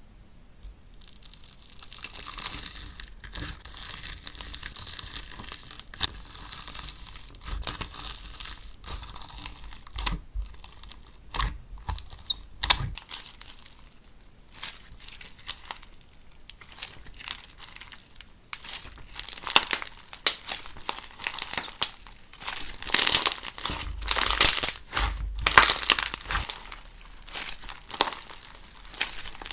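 Pink slime being squeezed and worked by hand, giving a stream of crackles and sharp clicks that gets busier and louder in the second half.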